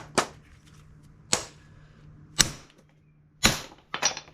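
Hammer striking metal about seven times at uneven intervals, driving a tight-fitting bushing or pin into a 1970 Chevelle door hinge through a socket. Each strike is a sharp metallic hit with a short ring.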